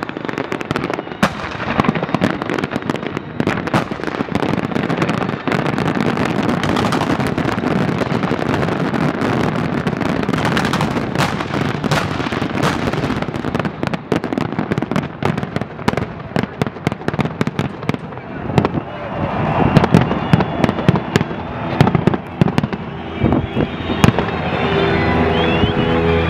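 Aerial fireworks display: dense, rapid crackling and popping from many shells bursting at once. From about two-thirds of the way in, the crackle thins out and a series of separate, louder bangs takes over.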